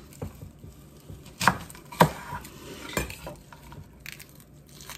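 A large kitchen knife cutting an onion in half on a bamboo cutting board: three sharp knocks of the blade against the board about a second apart, with lighter taps and handling between them.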